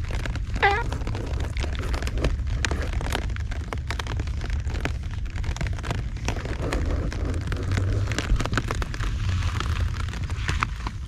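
Heavy typhoon rain pattering, with many sharp drops clicking close by over a steady low rumble. A cat gives one short meow about a second in.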